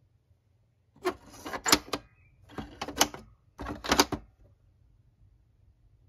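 Hard plastic pop-up doors of a Sesame Street pop-up school bus toy pushed shut one after another: three rounds of plastic clatter, each with a sharp snap as a door latches down.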